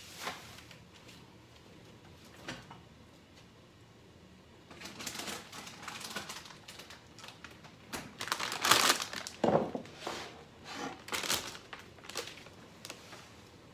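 Kitchen handling sounds: a couple of light knocks, then from about five seconds in a run of rustling, knocking and clattering as a refrigerator is opened and a plastic-bagged rotisserie chicken and a wooden cutting board are moved about, loudest around the ninth second.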